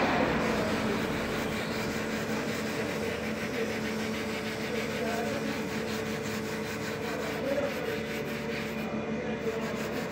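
Steel wool scrubbing over the old varnish on a wooden board, a soft scratchy rubbing, over a steady background hum.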